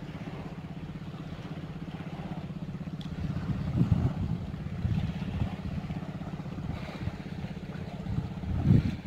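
An engine running steadily with a fast, even low throb, with a few louder low swells partway through and near the end.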